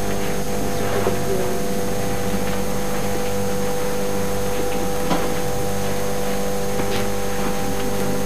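Steady low electrical hum with hiss, the background noise of an old camcorder's tape recording, with a few faint soft clicks.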